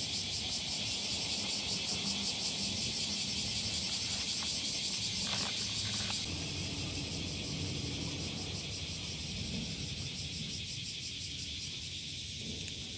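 Steady, fast-pulsing insect chirring, high-pitched and continuous, over a soft low rustle.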